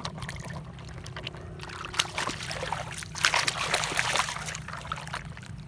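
Water pouring and splashing, with scattered small clicks and knocks; the splashing grows louder about three seconds in.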